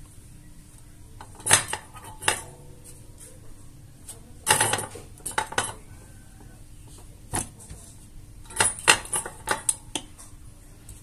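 Handling noise from a small power-supply circuit board and its plastic adapter case being turned over and fitted together: scattered clicks and knocks, a short rustle about four and a half seconds in, and a quick run of clicks near the end.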